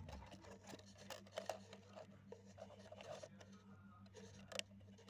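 Faint scratching and rustling of fingers handling wires against a circuit board, with scattered small clicks and one sharper click a little past halfway, over a low steady hum.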